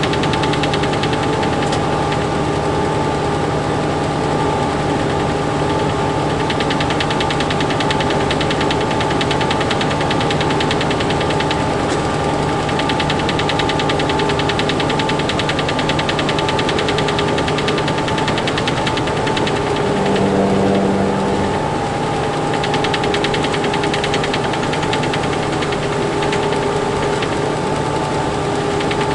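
Inside a Freightliner semi truck's cab: steady engine drone with a fast, dense rattle, which sounds to the driver like it comes from low down near the cabinet rather than up above. A brief low hum comes in about two-thirds of the way through.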